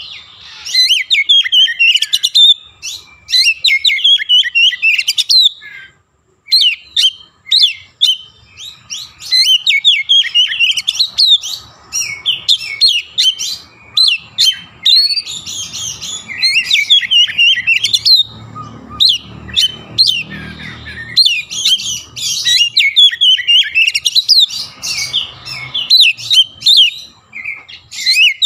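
Oriental magpie-robin (kacer) singing continuously: rapid, varied phrases of whistles, trills and sharp notes, with a brief pause about six seconds in.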